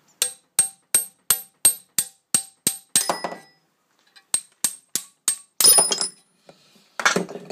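Hammer blows ringing on metal as a sticking intake valve is driven out of a Jeep 258 straight-six cylinder head; the valve is stuck in its guide by a gummy build-up of old petrol, oil and carbon. About nine quick blows at roughly three a second, a short clatter, four more blows, then a louder metallic clatter with a high ring about six seconds in and another near the end.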